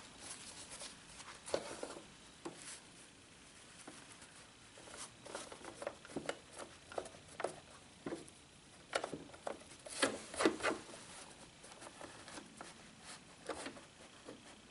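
Faint rustling and light, irregular clicks of denim fabric and a zipper being handled and positioned under a sewing machine's presser foot, with a few louder clicks about ten seconds in.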